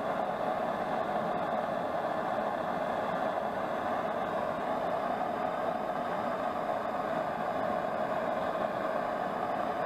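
Gas blowtorch flame hissing steadily at an even level as it heats a small steel spring red-hot to soften it for bending.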